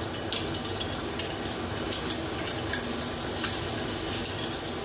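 Beef steak frying in butter in a pan with a steady sizzle. A metal utensil clicks sharply against a container a few times as frozen minced garlic is chipped out.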